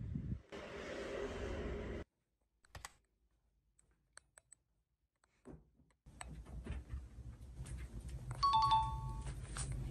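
A steady room hum, then a few seconds of near silence with faint clicks, then room noise again. Near the end comes a short two-note electronic chime, the second note lower than the first, like a ding-dong.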